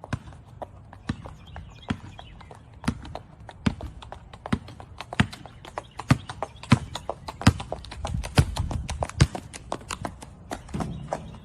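A run of sharp, irregular knocks or taps, a few a second, coming faster in the second half, over a low steady rumble.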